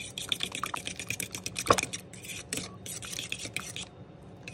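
A fork beating egg wash in a stainless steel mixing bowl: rapid, rhythmic clicking of the tines against the metal and sloshing of the liquid, with one louder clack a little under two seconds in. It stops near the end.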